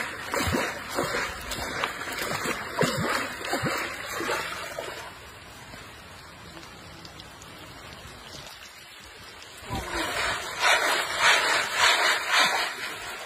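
Water splashing and sloshing in a cane basket as makhana (fox nut) seeds are washed in shallow pond water, stirred by foot and hand. Splashes come in quick runs for the first few seconds, ease off, then grow louder and busier near the end as the basket is swished through the water.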